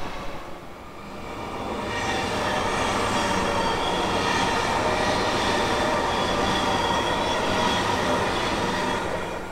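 Suburban electric train passing at speed: a steady rumble of wheels on the rails with several steady high tones above it, building up about a second in and holding until near the end.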